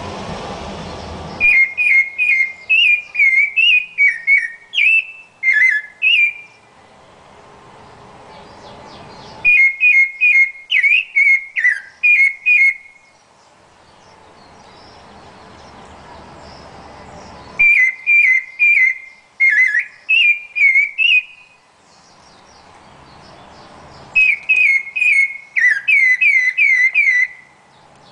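Rufous-bellied thrush (sabiá-laranjeira) singing: four phrases of clear, fluty whistled notes that slide up and down in pitch, each phrase a few seconds long and separated by pauses. A rushing noise fills the first second and a half.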